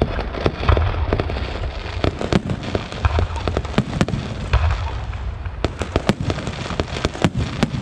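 Fireworks and firecrackers going off: many sharp bangs and dense crackling over repeated deep booms.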